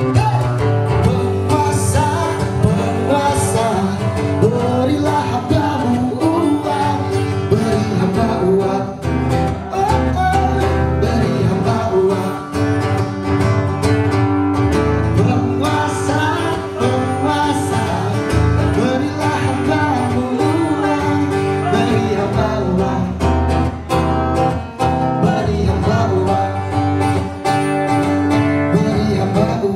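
Live acoustic band music amplified through a PA sound system: strummed acoustic guitars with a singer.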